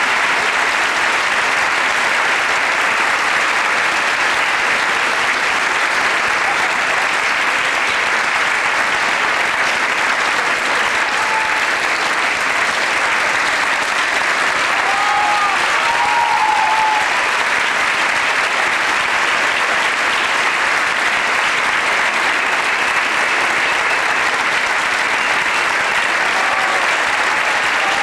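Theatre audience applauding steadily throughout a curtain call, with a few brief cheers rising above the clapping about halfway through.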